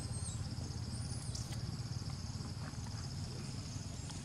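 Insects trilling in a steady, rapidly pulsing high chorus over a low rumble, with a couple of brief thin high whistles near the start and about a second in.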